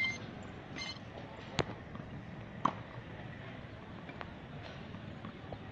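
Tennis ball knocks during a rally against a practice wall: two sharp knocks about a second apart, then a few fainter ones, over a low steady background.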